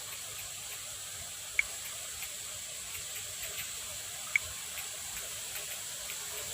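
Typing on a phone's on-screen keyboard: two sharp clicks about three seconds apart, with fainter ticks between, over a steady hiss.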